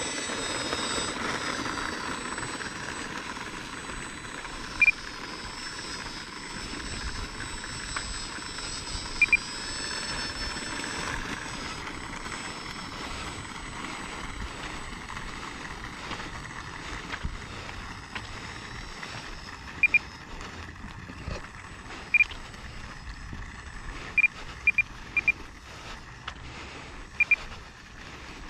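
Electric motor and propeller of an Arrows 1100mm Corsair RC model plane running steadily, with a faint high whine in the first dozen seconds. Several short, high beeps sound here and there, more of them near the end.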